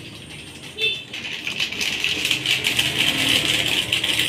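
Plastic bag crinkling and rustling steadily as it is handled and worked open by hand.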